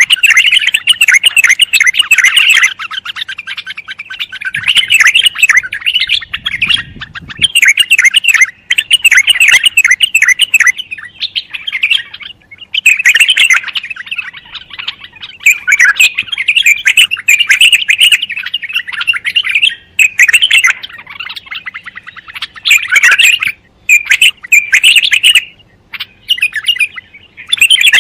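Bulbul singing: fast runs of chirping, warbling notes in phrases a few seconds long, broken by short pauses.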